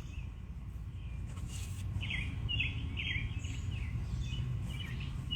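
A bird chirping repeatedly, short falling chirps about twice a second from about two seconds in, over a steady low background rumble.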